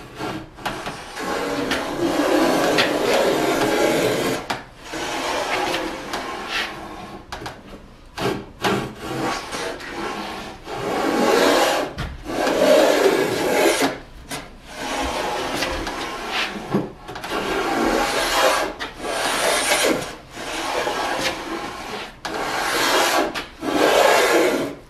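Metal combination plane with a moulding cutter being pushed along the edge of a wooden board, cutting a decorative profile: about ten rasping strokes, each a second or more long, with short pauses between them.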